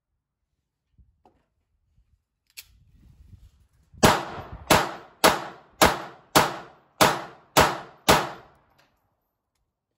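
Beretta 85BB Cheetah .380 ACP pistol fired eight times in quick, even succession, a little under two shots a second. Each is a sharp report with a short ringing tail. The shots start about four seconds in, after a single faint click.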